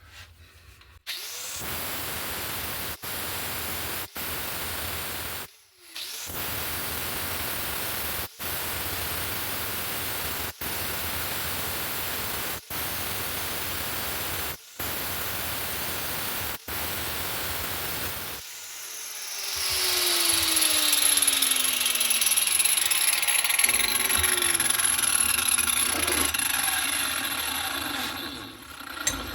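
Power tool cutting a steel knife blank: a steady run broken by brief dropouts every couple of seconds, then about two-thirds of the way in a louder, harsher cut with a tone sliding down in pitch, stopping near the end.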